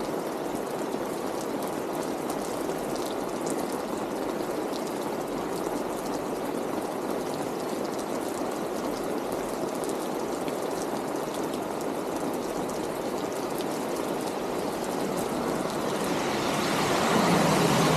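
Steady rain falling on the street with water running and dripping. Near the end a car approaches on the wet road and the hiss of its tyres on the wet surface swells.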